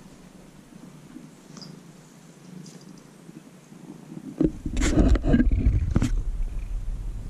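Domestic cat purring loudly close to the microphone from about four and a half seconds in, with rustling and several sharp clicks as its fur brushes against the camera.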